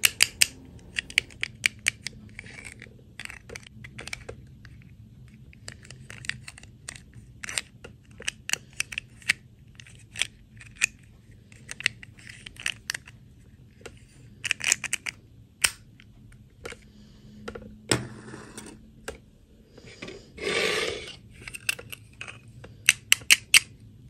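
Small plastic dolls and their stiff plastic clip-on dresses handled close to the microphone: many scattered clicks and taps as a dress is pressed onto a doll, with a few short rustling scrapes, the loudest near the end.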